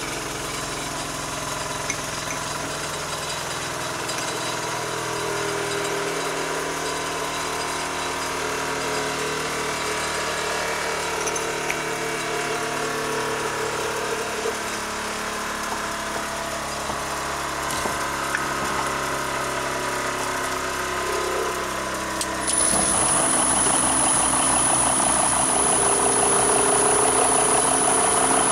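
Steady machine hum with shifting low tones. About three-quarters of the way through it steps up louder with a steady high whine as the Chinese mini lathe's spindle starts turning.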